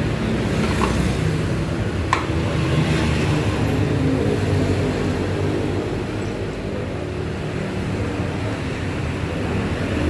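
A steady low mechanical hum, with two short sharp clicks about one and two seconds in.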